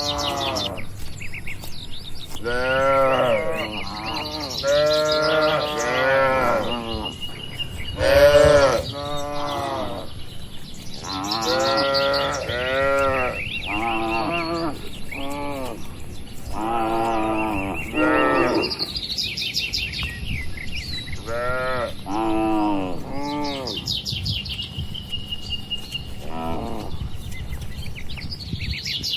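A herd of cattle mooing, one call after another and sometimes overlapping, each call rising and then falling in pitch.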